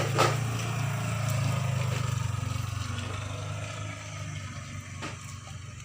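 A motor engine running with a steady low hum that slowly fades away, as of a vehicle moving off.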